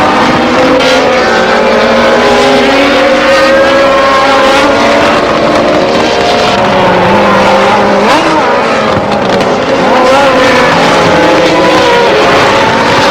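Several racing car engines running at high revs together, their pitches rising and falling as they accelerate and change gear; one engine's pitch sweeps sharply up and back down about eight seconds in, as a car passes.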